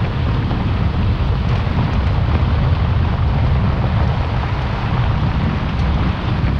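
Strong wind buffeting the microphone over a steady low rumble, with the rolling noise of the passing Renfe Alvia S730 coaches mixed in.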